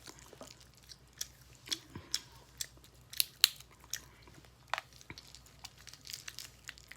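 Dungeness crab being cracked and eaten: irregular sharp shell cracks and crunches, the loudest a little past the middle.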